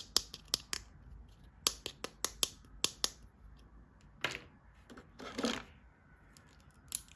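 Sharp clicks and taps of plastic toys being handled, a quick run of them in the first three seconds, then two short scraping or rustling sounds in the middle and a few more clicks near the end.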